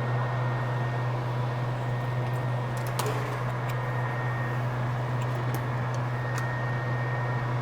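Steady fan-like whoosh over a strong, constant low electrical hum, with a few light clicks, the sharpest about three seconds in.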